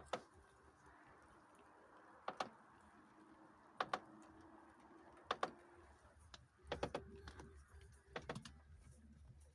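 Sharp crunching clicks from the front right strut tower of a Lada Priora as the steering wheel is turned to the right, coming one every second or so. The strut and its top bearing have been checked and found sound, and the owner traces the crunch to the strut tower (the 'stakan') itself.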